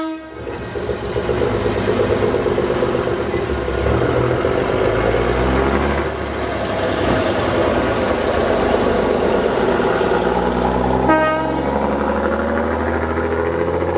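Engine of the Brill railcar No. 121 running steadily as it pulls away along the track. About eleven seconds in there is a short horn toot, after which the engine note rises as it accelerates.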